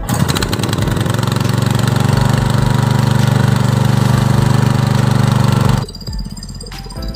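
Small engine of a portable water pump running loud and steady with a fast, even firing rhythm while pumping water up through its suction hose; the sound cuts off suddenly a little before six seconds in.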